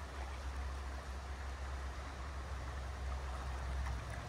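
Steady rush of a shallow, stony river flowing around the angler's wading legs, an even hiss over a low rumble.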